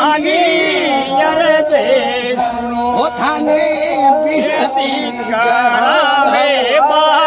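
Ravanahatha, the Rajasthani bowed folk fiddle, playing an instrumental melody that wavers and slides between notes.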